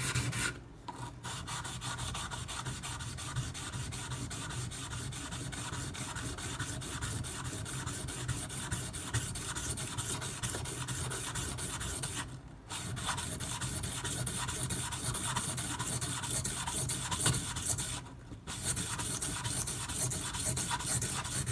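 Steel knife blade (154CM steel) scraped back and forth with light pressure on a Shapton Pro water stone, laid flat on its main bevel to thin and convex a thick, wedgy grind. The strokes run in a steady rhythm, broken by three short pauses.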